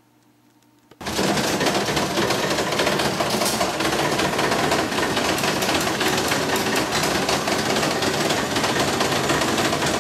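Baker's Pacers horse-racing slot machine's mechanism running, its gears and linkages clattering rapidly and continuously. It starts abruptly about a second in.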